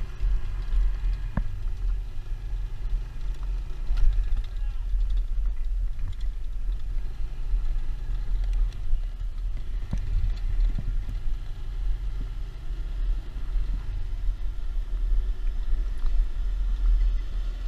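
Motorcycle ride noise: a steady low rumble of wind buffeting the microphone over the running motorcycle, with a few sharp knocks, about a second in, around four seconds in and around ten seconds in.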